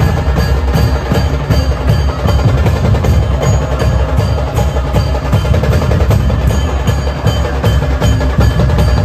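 Procession drums and percussion playing a loud, fast, steady rhythm, with sharp strokes and some ringing metallic tones over a heavy low drum beat.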